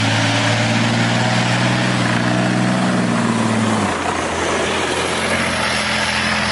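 Steady motor hum with a hiss over it, its tone shifting lower and a little quieter about four seconds in.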